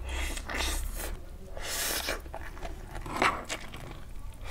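Close-up eating sounds of a man slurping and chewing a mouthful of stir-fried Wai Wai instant noodles, with several hissing slurps; the loudest comes about two seconds in.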